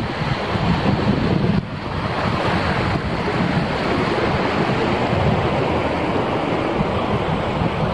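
Mountain stream rushing over rocks beneath a wooden footbridge, a steady loud hiss of white water, with gusting wind buffeting the microphone.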